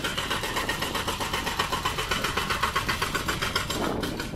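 Excavator working on demolition rubble: a fast, even mechanical rattle of about nine beats a second that cuts off near the end.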